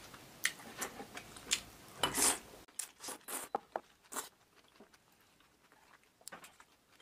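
A person eating wide noodles: wet mouth clicks and smacks with a longer, louder burst about two seconds in. After about four seconds only a few faint chewing clicks are left.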